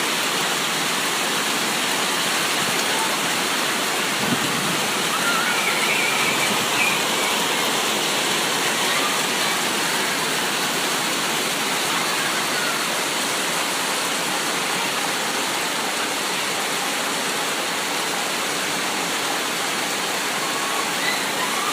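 Steady, heavy rain: a continuous, even hiss of falling water with no breaks.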